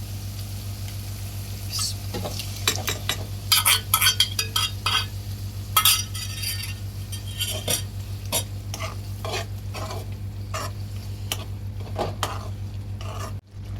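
A spoon stirring and scraping in a pot of frying masala, with oil sizzling under it; the masala has been fried until the oil separates. Irregular clinks and scrapes of the spoon against the pot over a steady low hum.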